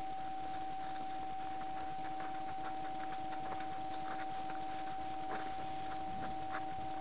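Steady high-pitched electronic whine from a head-mounted action camera, holding one pitch throughout, with faint scattered clicks from the horse walking through snow.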